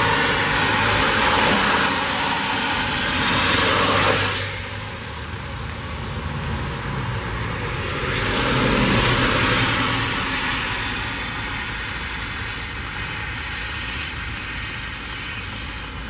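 Cars passing on a rain-wet road: tyre hiss that swells as each goes by, loudest over the first four seconds and again around eight seconds in.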